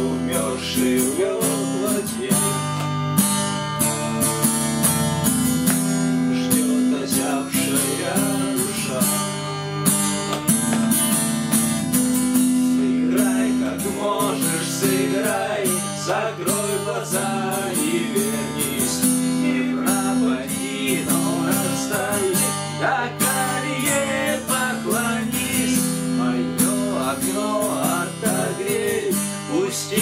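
Acoustic guitar strummed in a steady rhythm, chord after chord, as a song accompaniment, with voices singing over it at times.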